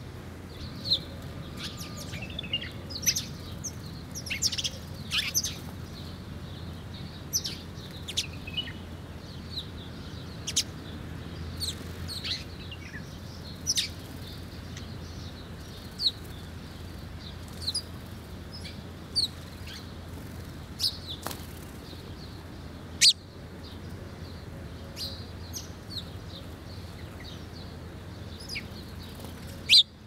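Sparrows and other small songbirds chirping in short, sharp calls at irregular intervals, over a steady low background rumble.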